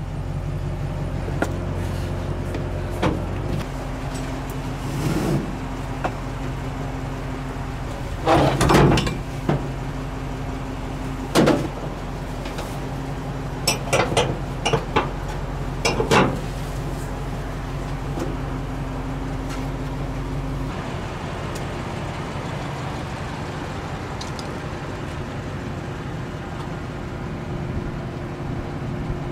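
A pickup truck engine idles steadily, with several sharp knocks and clanks and a short run of quick clicks as the camper's tie-down straps and hardware are worked. About two thirds of the way through, the low part of the engine hum drops away.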